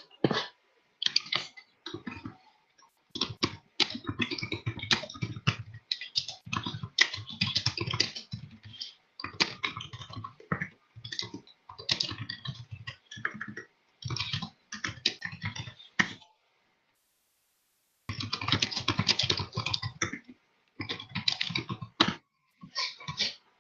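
Typing on a computer keyboard: quick runs of key clicks in bursts, with a pause of about a second and a half a little past the middle.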